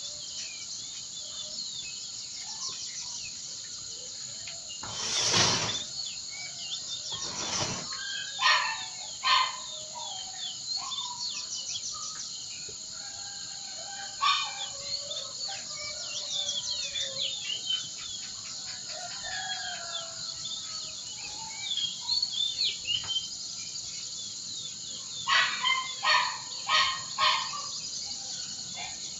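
Many wild birds chirping and singing together over a steady high-pitched hiss. A loud burst comes about five seconds in, and a quick series of loud, repeated calls comes near the end.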